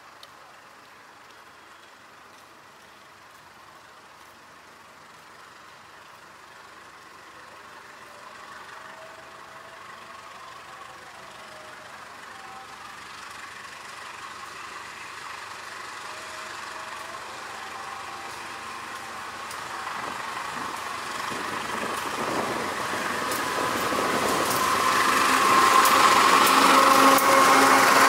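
Diesel-electric locomotive hauling a passenger train, its engine running as it approaches, growing steadily louder until it passes close by near the end, with the clatter of wheels on the rails as it goes by.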